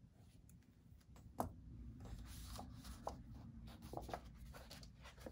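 Light taps and clicks, the loudest about one and a half seconds in, as the Apple Pencil is finished with and set down. Then a sheet of paper rustles softly as it is picked up and handled.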